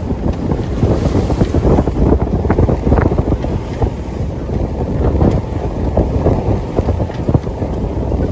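Wind buffeting the microphone on the deck of a sailboat at sea, gusty and uneven, with the wash of the waves beneath it.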